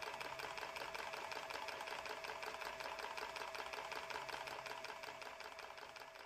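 Small mechanism of a wooden blacksmith automaton running, a rapid, even mechanical clicking with a steady hum underneath, fading away near the end.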